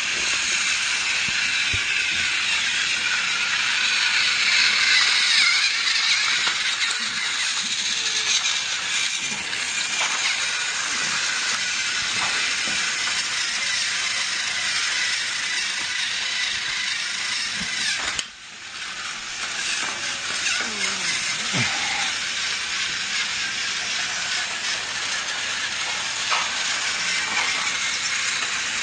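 Battery-powered toy train running around plastic track: a steady high whirring rattle from its small motor and wheels. The sound drops out abruptly for a moment about two-thirds of the way through, then resumes.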